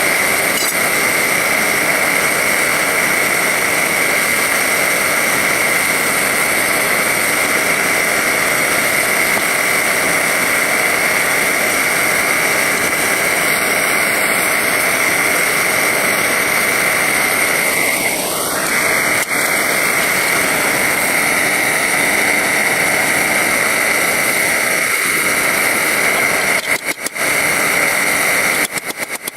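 Steady, loud machine noise with a constant high whine. It breaks up, cutting in and out, near the end.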